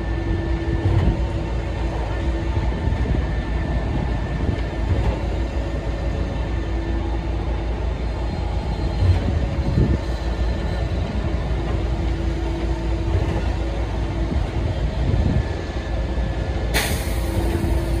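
Concrete mixer truck's diesel engine running steadily, its drum turning, a low, even rumble.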